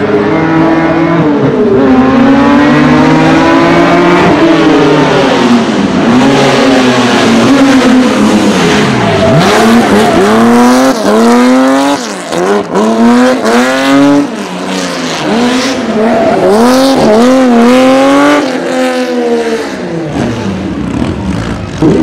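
Porsche 911 SC rally car's air-cooled flat-six engine revving hard, climbing and dropping in long sweeps at first, then rising and falling in quick swings from about ten seconds in as it spins donuts, with tyre squeal.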